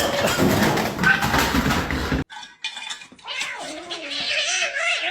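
A cat yowling in long, wavering calls, preceded by about two seconds of loud clattering noise that cuts off suddenly.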